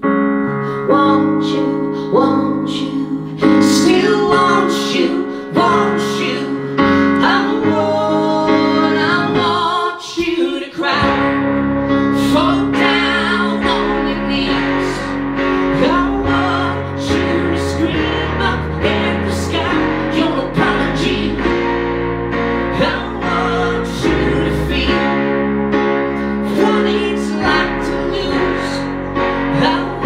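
Live music on acoustic guitar and keyboards playing sustained chords, with a deep bass line from the keyboard coming in about a third of the way through.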